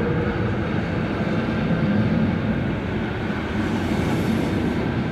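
Steady running noise of a 'žabotlam' (Pantograf) electric multiple unit in motion: a dense rumble of wheels on the track with a faint steady hum.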